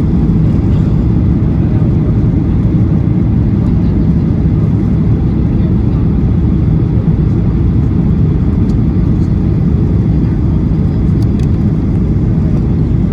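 Steady low rumble of a Boeing airliner heard from inside the passenger cabin, with no change in level.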